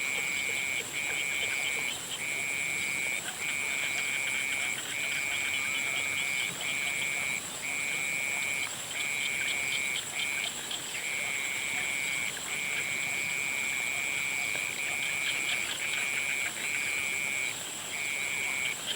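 Chorus of frogs trilling: a high, continuous trill broken by short gaps about once a second, over a steady, higher-pitched ringing drone.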